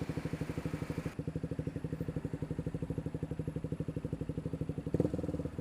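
KTM Duke 125's single-cylinder four-stroke engine idling with an even, fast pulse, getting a little louder about five seconds in.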